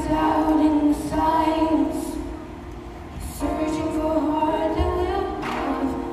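A female voice sings long held notes into a microphone over backing music, with a short break about a second in and a longer one in the middle.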